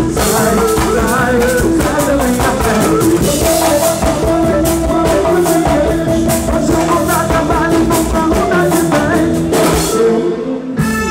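Pagode baiano band playing live through a PA: dense percussion on timbales and drum kit under a lead singer. About ten seconds in, the band breaks off, leaving a short gap closed by a single hit.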